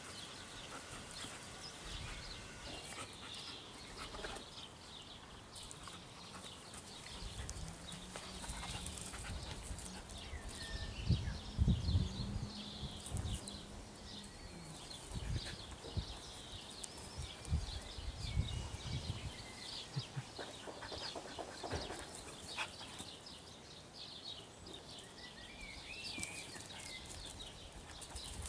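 A puppy and a Belgian Shepherd dog playing: scuffling and scattered low thumps, loudest about eleven to twelve seconds in.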